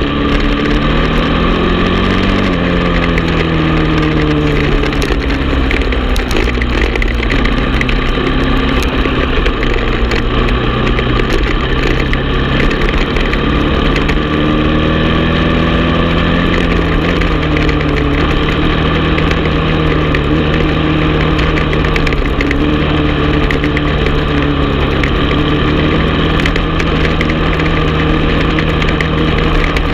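Honda TRX450 ATV's single-cylinder four-stroke engine running under way on a dirt trail, its pitch rising and falling through throttle and gear changes around two seconds in and again midway, otherwise holding steady.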